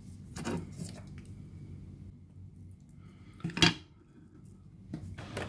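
Hands handling a circuit board and small tools on a wooden board: a light knock about half a second in, a sharp click about three and a half seconds in, the loudest sound, and another knock near the end.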